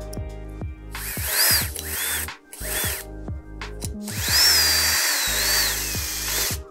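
Cordless drill-driver driving screws through a metal mounting bracket into wall plugs in a drywall ceiling. It gives three short bursts of motor whine that rise and fall in pitch, then one longer run of about two and a half seconds.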